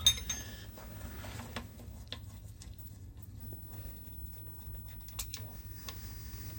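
Hand work with a spanner on the shaper's bolts and parts: a sharp click at the start, then scattered light clicks and taps, over a low steady hum.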